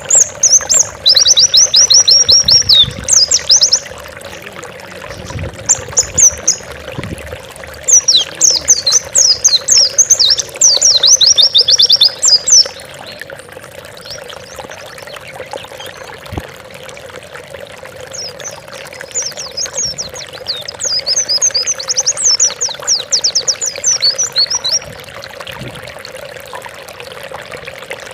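White-eye (pleci) singing in bouts of rapid, high, twittering trills, with pauses between bouts. A steady sound of running water plays underneath.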